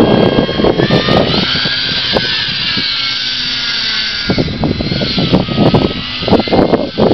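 Small 3D RC plane's motor and propeller whining. The pitch rises about a second in, holds for about three seconds, then eases off. Wind buffets the microphone at the start and again in the last two seconds.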